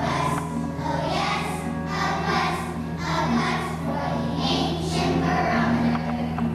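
A group of children singing together, with a steady low hum underneath.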